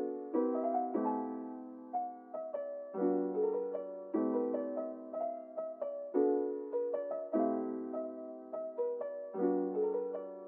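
Background piano music: soft sustained chords that change every second or so, with a gentle melody on top.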